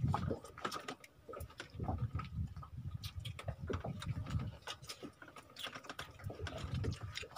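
Irregular small clicks and taps of people eating by hand, picking at grilled fish and handling plastic bowls.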